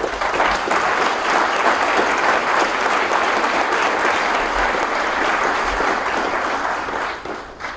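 Audience applauding, a dense steady clatter of many hands clapping that fades out near the end.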